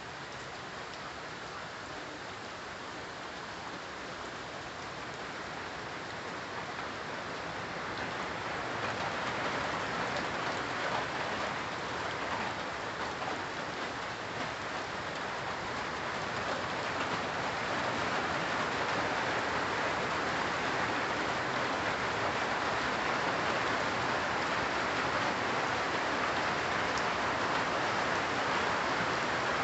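Steady rain falling on leafy trees, a dense even patter that grows heavier about a third of the way in and again past the middle, then holds.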